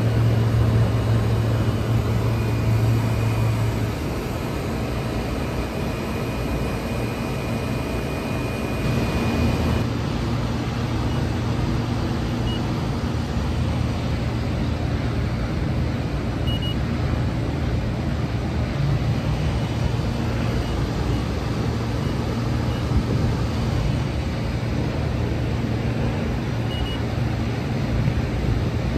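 Steady low drone and hum of rooftop air-conditioning equipment running, strongest over the first few seconds and then even.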